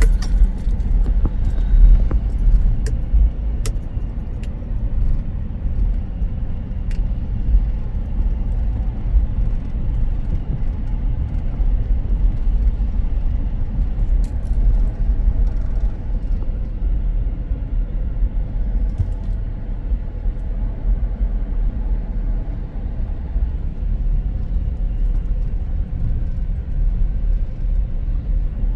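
Steady low rumble of a car running, the engine and road noise heard from within the vehicle.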